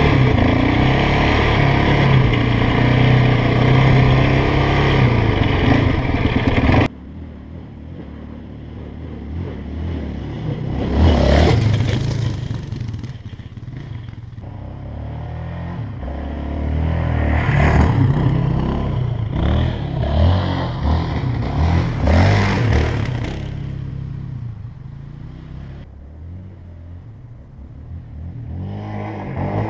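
Yamaha Raptor quad's single-cylinder engine running under throttle, loud and close for the first seven seconds, then cutting suddenly to a farther-off engine that swells and fades several times as it revs through the sand, growing louder again near the end.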